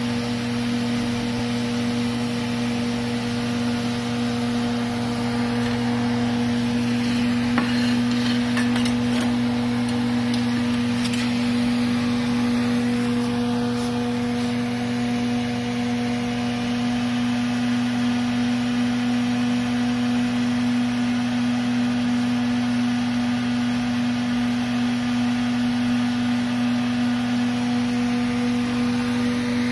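A steady electric hum with an even low drone, like a kitchen fan or appliance running. A few light clicks and clinks come about a third of the way in.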